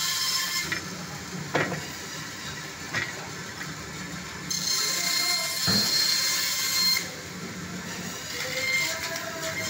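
Meat band saw running and cutting through a frozen fish head, a steady hissing machine noise that grows louder while the blade bites into the frozen flesh, with a few short knocks as the fish is pushed and shifted against the table.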